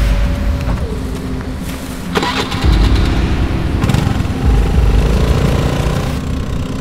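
Motor scooter engine starting about two seconds in, then running.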